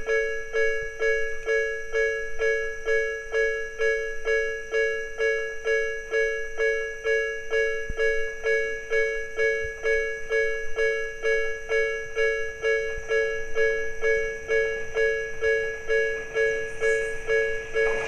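Electronic level-crossing alarm of the Tobu 'sound B' type, ringing steadily at about two bell-like strokes a second, each stroke dying away quickly.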